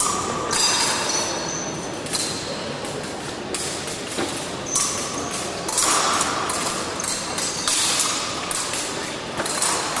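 Footwork and blades of two épée fencers mid-bout: repeated thuds of feet on the piste, brief shoe squeaks and sharp clicks of blade contact.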